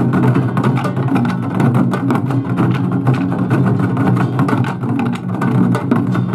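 An ensemble of Korean barrel drums (buk) beaten with sticks in a fast, dense, continuous run of strokes, amplified through stage speakers.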